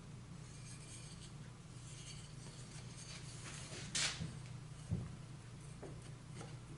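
Wooden molding being handled and pressed into place by hand: soft rubbing, one short scrape about four seconds in and a light knock about a second later, over a low steady hum.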